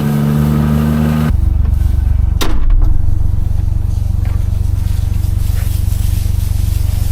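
A motor vehicle's engine running steadily, a low rumble whose sound changes abruptly about a second in, with a single sharp click a little later.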